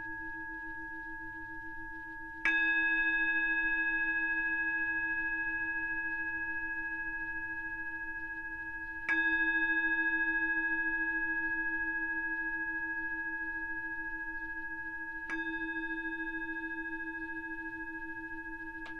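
Small brass Tibetan singing bowl, held on the palm and struck with a mallet three times about six seconds apart. Each strike rings on in a steady chord of several tones and slowly fades until the next.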